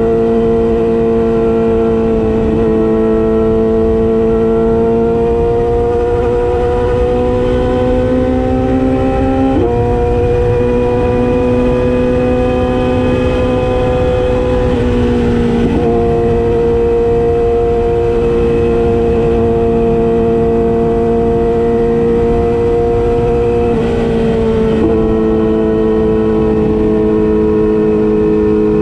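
Yamaha YZF-R6 inline-four engine running steadily under way. The note slowly creeps up in pitch and changes pitch abruptly four times.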